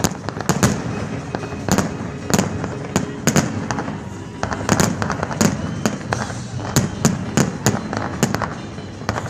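Fireworks salute going off in a rapid, irregular run of sharp bangs, about two a second, over a continuous rumble of further bursts.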